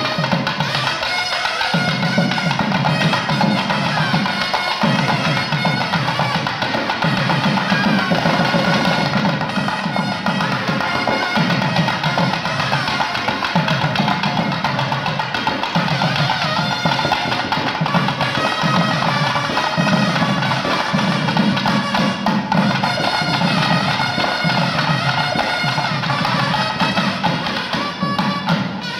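Nadaswaram and thavil temple ensemble playing: a reedy double-reed melody winds on without a break over rapid, clustered thavil drum strokes.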